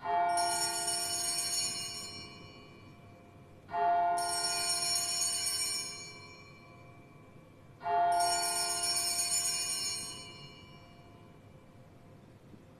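Sanctus bells (altar bells) rung three times, about four seconds apart, each ring bright and loud, then fading over about two seconds. They mark the elevation of the consecrated chalice after the words of institution.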